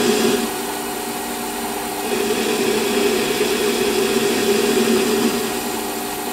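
Metal lathe running with a steady hum while the tool takes a light turning cut on a small boss on the end of the spinning workpiece. The cutting noise is louder for the first half second, eases off, then swells again from about two seconds in until shortly before the end.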